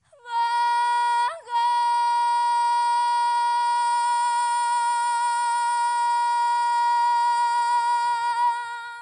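A woman's voice singing a long, high, wordless note: a short note, a brief break about a second in, then one steady held note for about seven seconds that fades out near the end.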